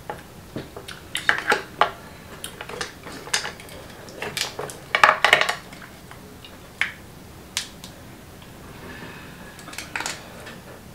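Cooked crab shell being cracked and pulled apart by hand: irregular sharp cracks and clicks, with shells knocking against the dishes. The loudest run of cracks comes about four to five and a half seconds in.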